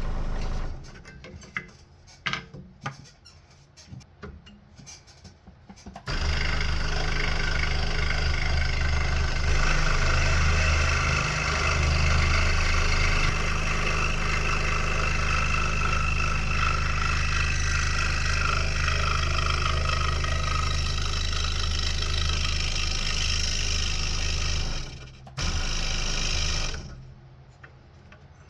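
Scroll saw running steadily for about twenty seconds as it cuts wood, then stopping, with a brief second run right after. Before it starts there are a few light knocks.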